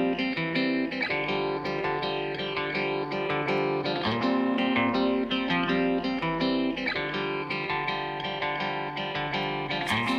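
Background music led by plucked guitar, with a steady rhythm.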